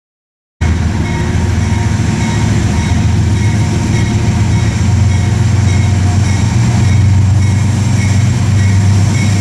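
Sound cuts in abruptly just over half a second in, then an approaching diesel-electric passenger locomotive, an Amtrak P32AC-DM, runs with a steady low drone that swells slightly toward the end.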